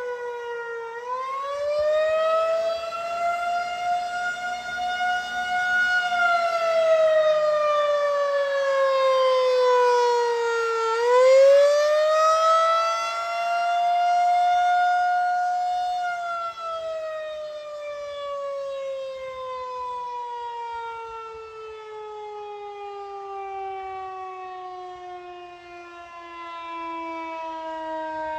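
Federal Signal 2001-130 electromechanical tornado siren sounding its wail. The pitch rises and falls twice, then winds down in a long steady fall over the last dozen seconds as the rotor slows.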